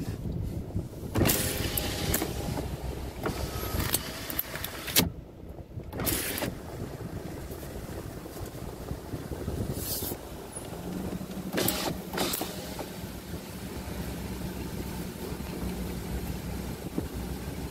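Car running at low speed, heard from inside the cabin, with several short noisy bumps and rustles. Partway through, a power window is lowered, and a steady low hum carries on after it.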